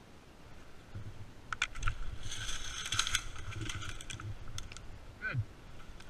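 Cut top of a tree being pushed over by hand: a few sharp cracks, then about a second of creaking, tearing wood as it breaks away at the hinge.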